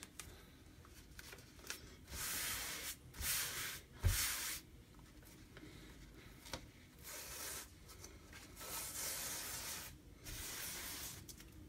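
A hand rubbing an adhesive silkscreen transfer against a microfiber towel in about eight short swishing strokes, 'fuzzing' it to take off some of its tack. A single knock about four seconds in.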